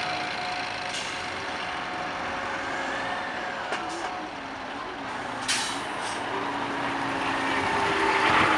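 Concrete mixer truck driving slowly toward and past, its diesel engine getting louder as it comes near, with a short air-brake hiss about five and a half seconds in.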